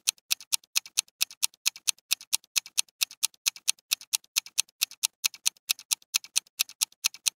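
Clock ticking sound effect: fast, even, sharp ticks, about four to five a second.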